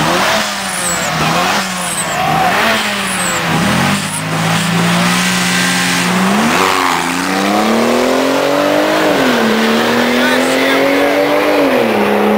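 Drag-racing car engines revving in short blips about once a second, then a car accelerating hard away down the strip. Its engine note climbs and falls back at two gear changes, one near the middle and one near the end.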